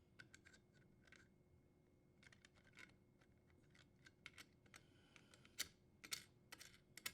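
Faint, irregular clicks and ticks of needle-nose pliers gripping and turning the strain relief nut on a dishwasher's power-cord junction box. The clicks come thicker and louder in the last few seconds.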